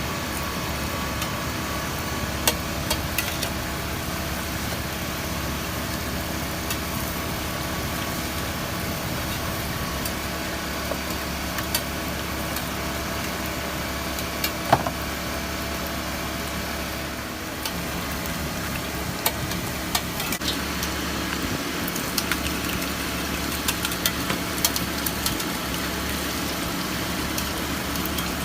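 Egg crepe frying on a street-stall griddle: steady sizzling under a constant mechanical hum, with scattered sharp clicks.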